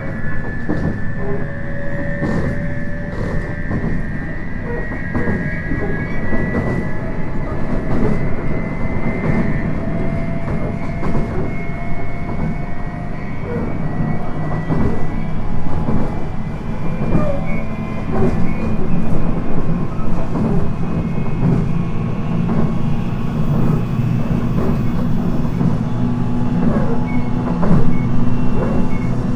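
JR East 719 series electric train running, heard from inside a car known for an abnormal running noise: a whine that rises slowly in pitch over the first half, a low hum that grows stronger from about halfway, and wheels clicking over rail joints.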